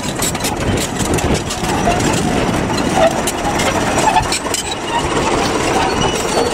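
Crawler bulldozer engine running close by, with frequent clanks and knocks from its steel tracks and blade working over stones.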